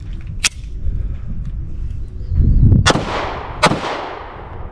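Bear Creek Arsenal Grizzly 101 9mm pistol firing: a sharp crack about half a second in, then two loud shots about three-quarters of a second apart in the second half, each ringing out and fading.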